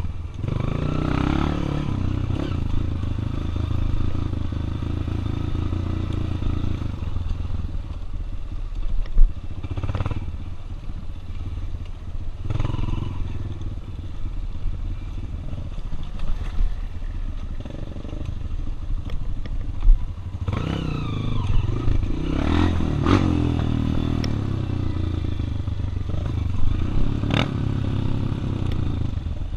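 Honda XR 240 trail bike's engine running under throttle, the revs rising and falling with the terrain, with sharp knocks and clatter as the bike jolts over rough trail.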